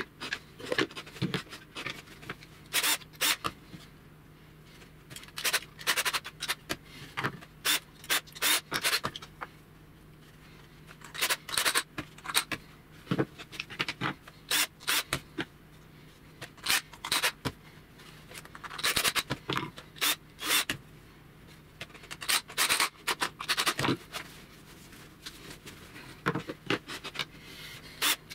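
Laminated plywood pieces being hand-sanded along their edges: short runs of quick rasping strokes with pauses between.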